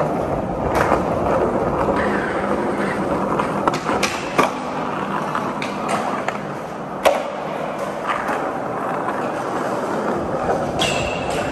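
Skateboard wheels rolling over a concrete parking-garage floor after a push, a steady rolling rumble broken by several sharp clicks spread a second or two apart.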